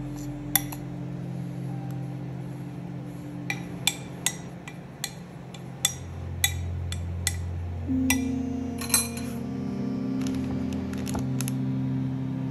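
A metal spoon clinking against a glass bowl while stirring and pressing down a dry, crumbly peanut filling: about a dozen sharp, irregular clinks over soft ambient background music.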